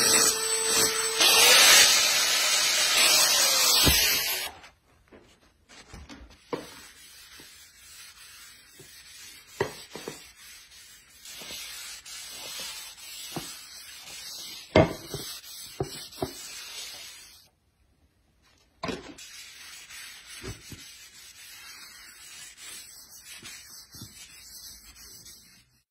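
A hand gouge shaving wood from a live-edge slab, loud scraping cuts for about the first four seconds. Then a cloth rubbing finish over the wood, much quieter, with a few light knocks scattered through it.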